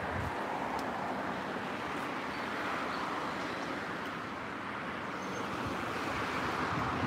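Steady noise of road traffic, swelling and easing as vehicles pass.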